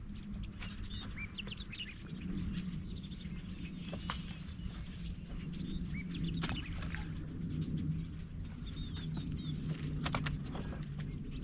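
Birds chirping, with many short high calls, over a steady low hum, and a few sharp clicks now and then.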